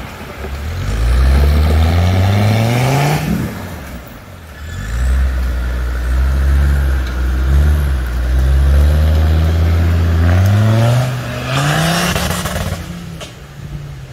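Off-road 4x4's engine revving hard twice. The revs climb for about three seconds and drop off sharply, then the engine holds a steady labouring note for several seconds before climbing again near the end, where a loud rush of noise joins it.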